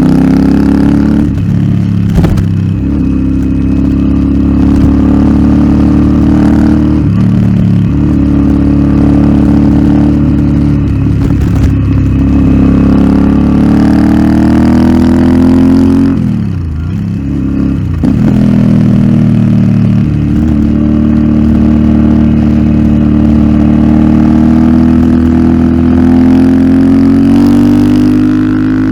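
Royal Enfield Interceptor 650's 648 cc parallel-twin engine running through an aftermarket Nuke exhaust while being ridden. The revs rise and ease off with the throttle, with brief breaks at gear changes. About two-thirds of the way through the revs drop away and then build again.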